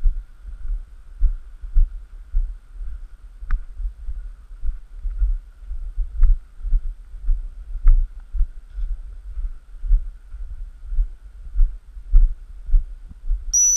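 Muffled low thumps of a person's footsteps, about two a second, jarring a handheld phone's microphone while walking. Near the end a short, loud, steady high whistle blast: a dog whistle.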